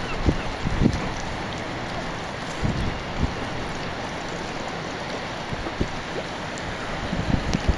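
Wind blowing across a choppy lake, with low gusts buffeting the microphone now and then over a steady rush of wind and water.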